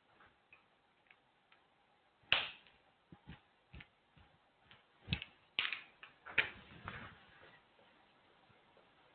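Irregular taps and short scrapes of writing on a board, with a sharp knock about two seconds in and a cluster of louder taps around five to six and a half seconds.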